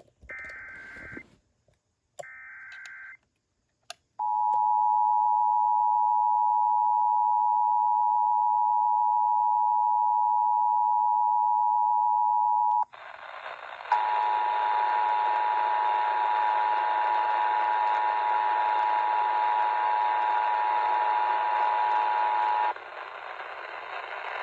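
Emergency Alert System tones on a radio broadcast. First come the last two bursts of the SAME digital header, warbling data tones about a second long each. Then the two-tone attention signal sounds as a steady two-note tone for about nine seconds, cuts out, and comes back over a band of hiss for about nine seconds more, after which the hiss continues alone.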